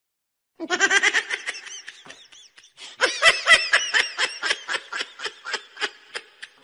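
High-pitched human laughter in quick repeated pulses. One short bout starts about half a second in, and a longer run starts about three seconds in and trails off.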